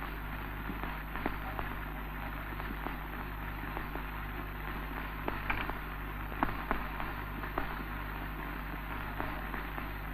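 Steady hiss and low hum of an early-1930s optical film soundtrack, with scattered crackles and pops, most of them a little past the middle.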